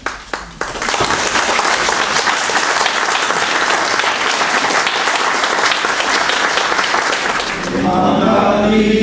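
Audience applauding for about seven seconds, then a choir starts singing near the end.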